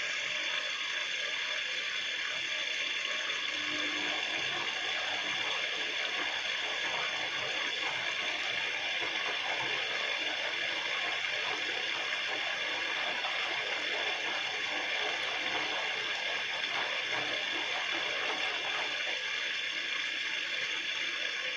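Bosch washing machine on its rinse cycle, drawing in water: a steady hiss with a busy mechanical churn underneath.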